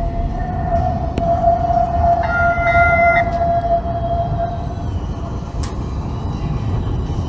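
Atlanta Streetcar tram approaching and pulling into the stop, with a steady high whine over a low rumble; the whine fades about five seconds in. A brief two-tone signal sounds about two seconds in and lasts about a second.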